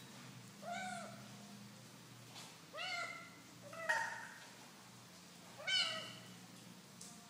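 A ginger tabby kitten meows three times, short calls that rise and then fall in pitch, spaced a couple of seconds apart. A single sharp tap comes about four seconds in.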